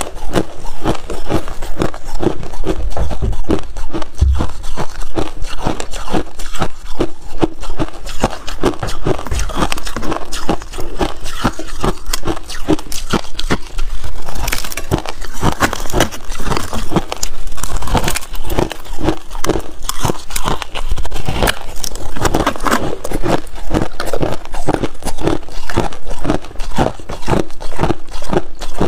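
Crushed ice being bitten and chewed close to a lavalier microphone: a continuous rapid run of crisp crunches and crackles.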